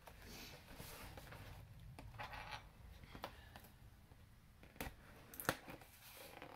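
Cardboard box being handled on a table: faint rubbing and scraping against the cardboard, with two sharp clicks about five seconds in.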